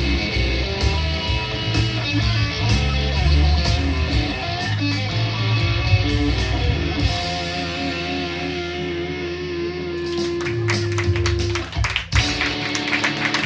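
Live rock band with electric guitar playing an instrumental blues passage that winds down to a held final note. Scattered applause starts near the end.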